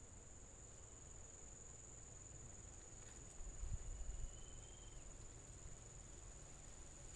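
Steady high-pitched insect trill, crickets, running without a break. A brief low rumble comes about halfway through.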